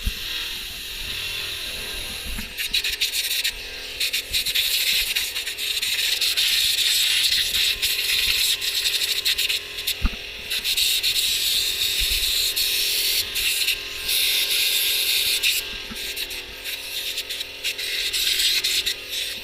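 Harsh, steady hissing and rubbing from cleaning caked dirt and grime off an old backhoe, running in long stretches with short breaks and an occasional knock.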